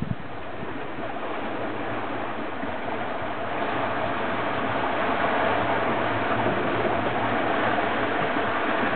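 Steady rush of water along a sailing yacht's hull, mixed with wind, as the boat moves under way, with a faint low hum underneath.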